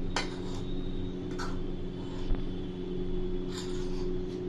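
Hands mixing boiled potato pieces with arrowroot in a steel pan: a few soft, brief scrapes and brushes against the pan over a steady low hum.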